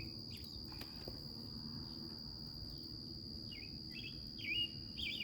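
Insects drone steadily at a high pitch in the background, with a songbird giving a few short chirps at the start and several more near the end. Faint clicks and rustles of soil being handled come in now and then.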